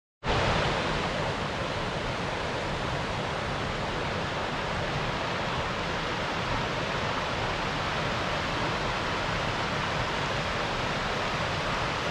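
Waterfall: a steady rush of falling water that cuts in abruptly at the start and holds level throughout.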